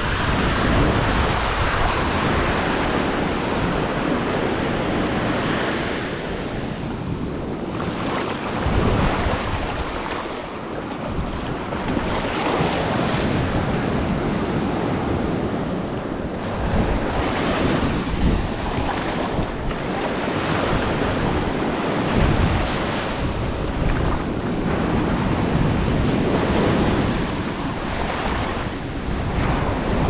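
Ocean surf: small waves breaking and washing up a sandy shore, the wash rising and falling every few seconds. Wind buffets the action camera's microphone with a low rumble.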